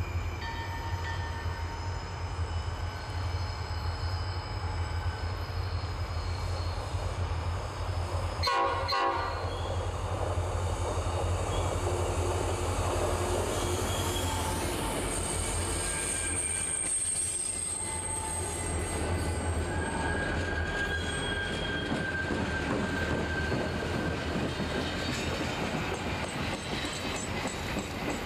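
Diesel freight train passing close by: the locomotives' engines run with a steady low rumble, a short horn blast sounds about a third of the way in, and later the freight cars roll by with high wheel squeal on the curve.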